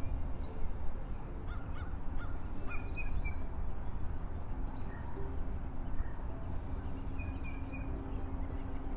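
Outdoor background with a steady low rumble and a few short, faint high chirps, a cluster about two to three seconds in and another near the end.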